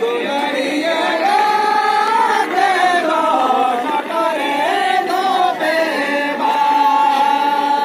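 Group of women singing a Santali Lagane dance song together in a high register. The melody moves up and down for about six seconds, then settles into one long held note.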